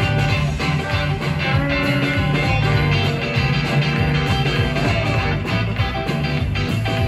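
Rock and roll band playing an instrumental passage: guitar leading over bass and a steady drum beat.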